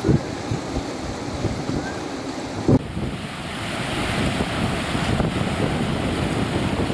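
Wind buffeting the microphone over choppy floodwater, with a few low thumps, the loudest near three seconds in. After that it turns into a steady, louder rush of muddy floodwater pouring over a weir.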